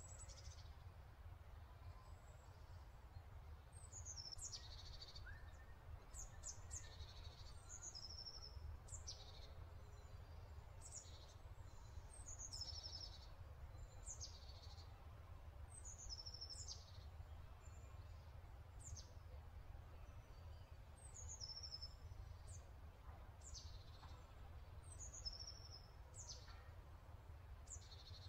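Faint small-bird chirps: short high calls that sweep downward, repeating every second or two, over a low steady hum.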